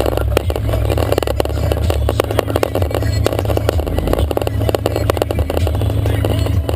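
Jeep Wrangler YJ driving on a rough off-road trail: a steady low engine drone with constant rattling and knocking throughout.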